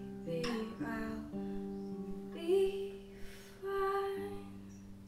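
Acoustic guitar finger-picked slowly, closing notes of a song left to ring out, growing quieter near the end.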